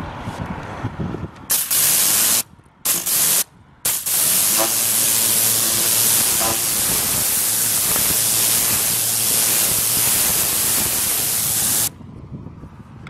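Pressure washer jet spraying water onto metal facade cladding, rinsing off cleaning foam: a loud hiss that comes in three short bursts, then runs steadily for about eight seconds and cuts off suddenly near the end.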